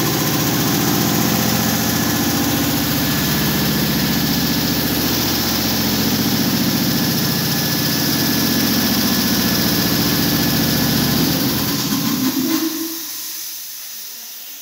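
Belt-driven piston air compressor running steadily, then shutting off about twelve seconds in and spinning down to a stop, its pitch dropping as it slows.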